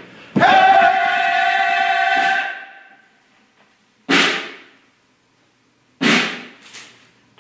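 A loud held musical note, starting suddenly and lasting about two seconds before fading. It is followed by two sharp percussive hits about two seconds apart, each dying away quickly.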